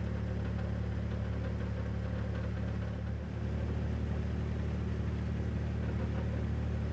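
Narrowboat's inboard engine running steadily while cruising, a low, even drone with a brief dip about three seconds in.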